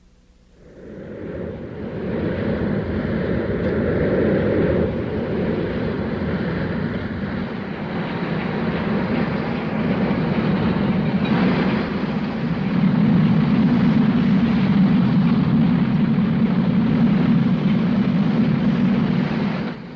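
Cartoon sound effect of heavy factory machinery, a car conveyor carrying cars toward a furnace and crusher, running with a steady, dense mechanical noise that swells up about a second in.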